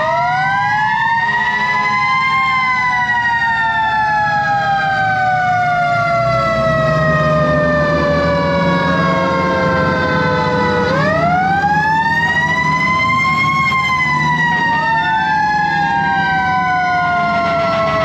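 Several mechanical fire-truck sirens winding up and coasting down, overlapping. The loudest rises over the first two seconds, falls away slowly until about eleven seconds in, then winds up again and slowly drops once more, while weaker sirens wind up around it. A diesel engine runs low underneath, the truck's Detroit 8V71.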